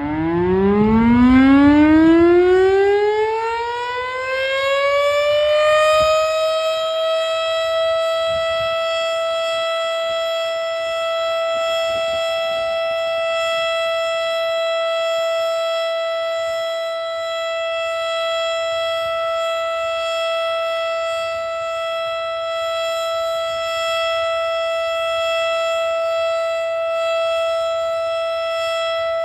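Federal Signal STH-10A single-tone, 10 hp outdoor warning siren sounding for its monthly test: it winds up, its pitch rising for about six seconds, then holds one steady high tone.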